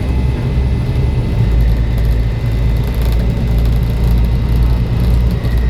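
Volvo B7 bus on the move, heard from on board: its diesel engine and the road noise make a steady, loud low rumble.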